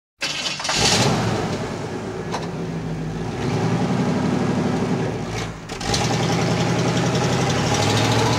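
Background music: sustained low notes that shift to a new pitch every two or three seconds.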